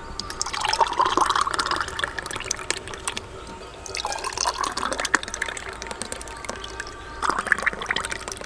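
Thick dragon fruit milkshake poured from a metal pot into glass tumblers over ice, in three separate pours, with small ticks of ice and glass.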